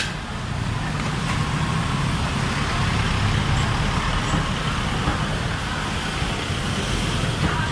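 Steady low rumble of passing street traffic.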